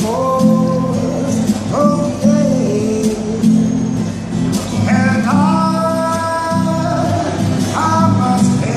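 A man singing in long, held phrases over a steadily strummed guitar.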